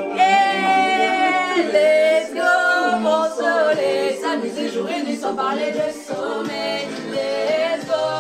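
A song with sung vocals playing loudly, opening on a long held note about a second long, with almost no deep bass.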